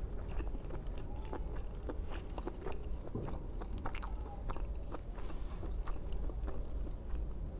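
Close-up mouth sounds of a person chewing soft steamed veg momos: small wet clicks and smacks scattered throughout, over a steady low hum.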